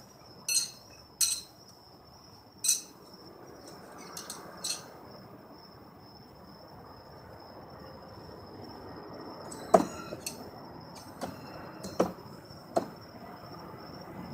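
Sharp metallic clinks and clicks from a knife being spun and caught: a handful in the first five seconds, then a cluster of harder knocks about ten to thirteen seconds in. Crickets trill steadily throughout.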